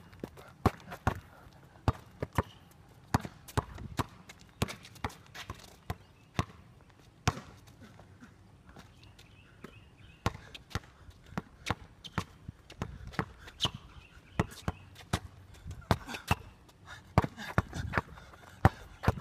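Basketball dribbled on an outdoor concrete court: runs of sharp bounces at uneven spacing, fewer and fainter for a few seconds around the middle.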